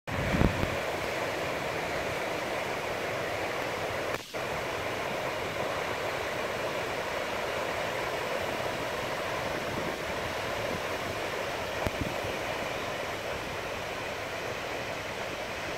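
Ocean surf: small waves breaking and washing up a rocky sand beach, heard as a steady rushing hiss.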